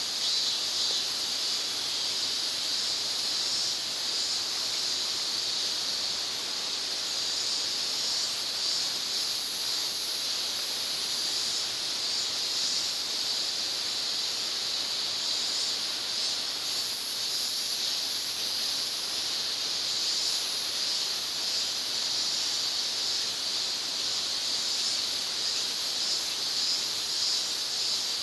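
Steady shrill chorus of summer insects, a continuous high-pitched hiss that swells and eases slightly with faint pulsing in its highest part.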